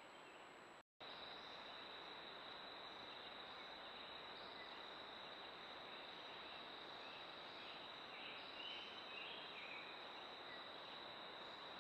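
Faint outdoor ambience through a trail camera's microphone: steady hiss with a continuous high-pitched insect trill and a few faint chirps. The sound drops out briefly about a second in.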